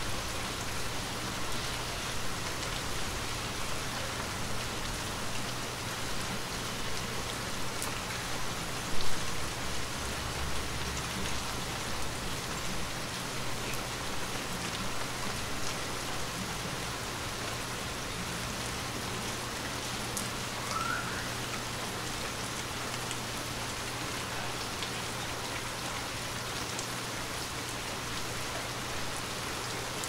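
Steady rain falling, an even hiss of drops hitting a surface, with one brief, louder hit about nine seconds in.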